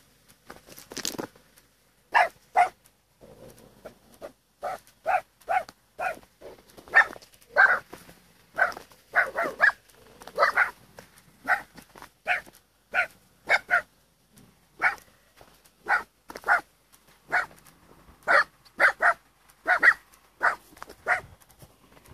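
A dog barking over and over, starting about two seconds in: many short barks, often in quick pairs, spaced about half a second to a second apart.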